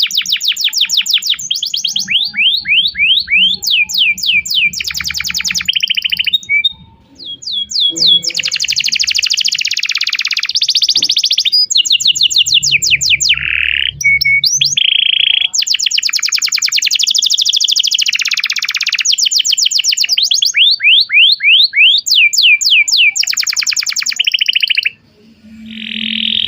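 Domestic canary singing a long song of fast trills and rapidly repeated chirping sweeps, the phrases changing every second or two, with short breaks about a quarter of the way in and near the end.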